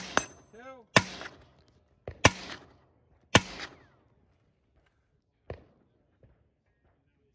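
Four shots from a short-barrelled rifle fired from prone with its muzzle inside a tire, about a second apart, with a faint ringing tone after the first. A weaker single crack follows about two seconds after the fourth shot.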